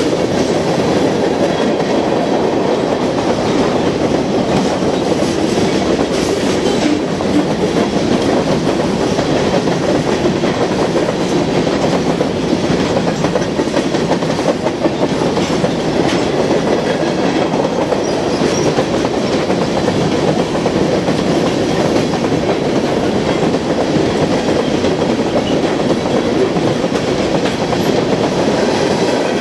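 A freight train's cars, mostly covered hoppers, rolling past close by at steady speed: a loud, even rumble and clatter of steel wheels on rail that does not let up.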